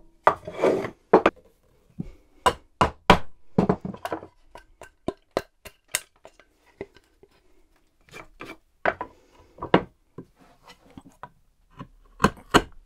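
Chisel driven into a hardwood plank by a small lignum vitae mallet, chopping out a mortise: a string of irregular sharp knocks, a dozen or more, with short scraping bursts as the chisel cuts and pares out the waste.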